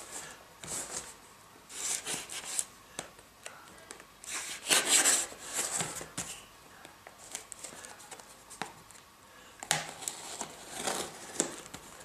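Parcel packaging being opened by hand: irregular spells of tearing and crinkling, with a few sharp clicks in between.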